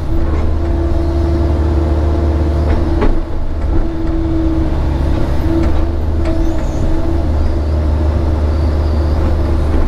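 Kobelco SK160 excavator's diesel engine and hydraulics running steadily under digging load, heard from inside the cab: a constant low hum with a steady higher tone over it, and a knock about three seconds in.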